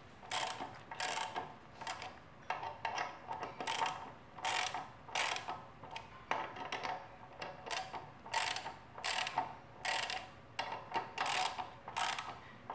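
Hand ratchet with an 11 mm socket clicking in short bursts, about one and a half strokes a second, as it tightens the nut on an upside-down camshaft bearing cap, compressing the valve springs little by little.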